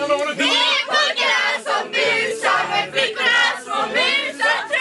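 Voices singing and shouting together in short, choppy phrases.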